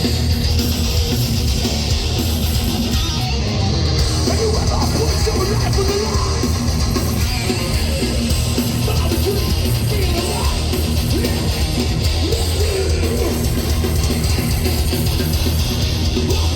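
Live heavy band music played loud, with distorted electric guitar over a heavy low end.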